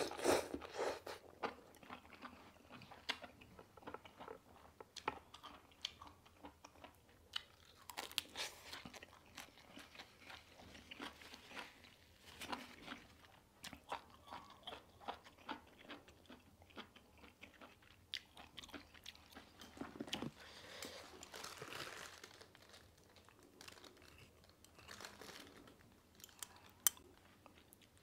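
Close-up eating sounds: a mouthful of instant noodles taken in at the start, then chewing with irregular small crunches and clicks.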